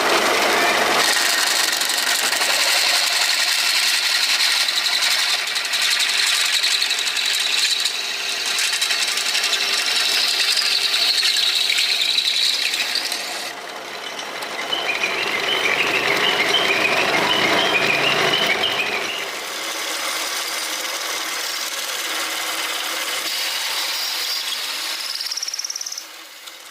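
Electric power tool running on metal, with a steady high whine. About halfway through the whine changes, turning to wavering squealing tones, and the tool cuts off shortly before the end.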